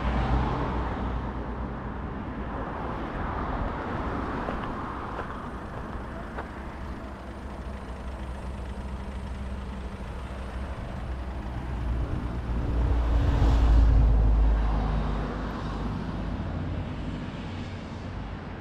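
Road vehicle noise: a steady low rumble, with a vehicle passing and growing louder about two-thirds of the way through, then fading.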